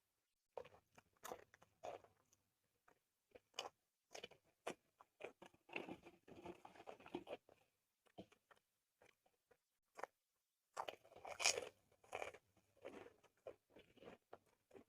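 Close-miked mouth sounds of someone eating spicy soy-sauce chicken with corn rice: irregular crunching bites and chewing, with clusters of wet chewing noise and the loudest bite about eleven seconds in.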